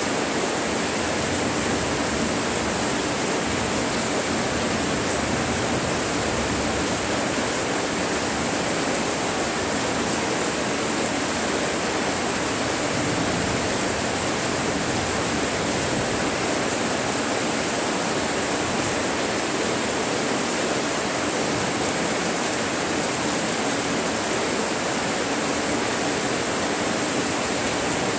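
Heavy rain falling steadily: an even, unbroken hiss with no thunder.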